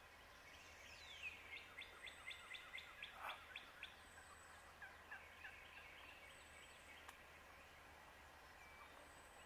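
Faint wild turkey calling: a short downward note, then a run of about ten short, evenly spaced notes, about four a second, then a softer run.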